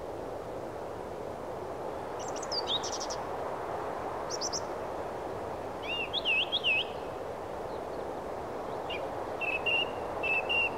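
Small birds chirping in short bursts of calls a few times over a steady background noise.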